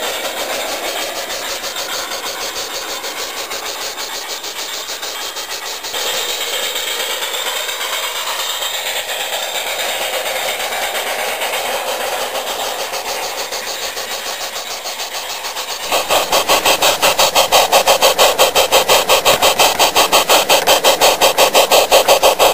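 Garden-scale model steam-outline train running on its track, giving a steady rapid rhythmic beat of about seven beats a second. It gets louder and closer about two-thirds of the way through.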